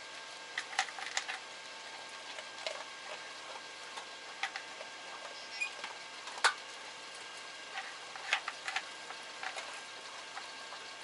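A dog working at a treat puzzle toy: irregular sharp clicks and knocks as the puzzle pieces are nudged and moved, the loudest about six and a half seconds in.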